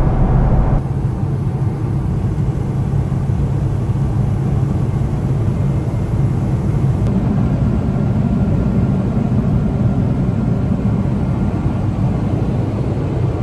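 Steady low rumble of an airliner cabin in flight: engine and airflow noise.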